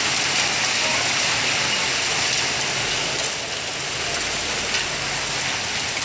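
Heavy rain pouring down and pattering on surfaces in a steady hiss, with a few sharper ticks of drops, easing a little about halfway through.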